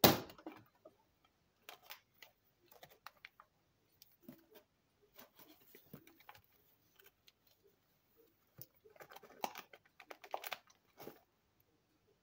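Plastic vacuum-sealer bag crinkling and rustling in short, scattered bursts as it is handled and pushed into the sealer, busiest near the end. A single sharp knock right at the start is the loudest sound.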